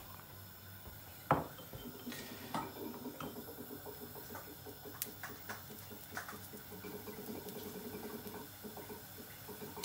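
Kitchen clatter from a metal spoon and a steel mixing bowl of pancake batter being handled: one sharp knock about a second in, then lighter scattered clinks.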